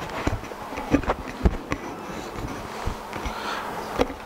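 Handling noise from a gooseneck podium microphone being bent and adjusted by hand, heard through the PA as irregular knocks and rubbing, over a steady low electrical buzz.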